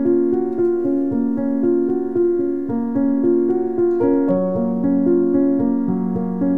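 Background keyboard music: a slow melody over held chords.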